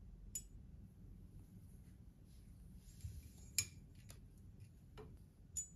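About five small sharp clicks and ticks from hands handling wires and plastic parts on a 3D printer's aluminium frame, the loudest about three and a half seconds in, with a soft rustle of cable just before it.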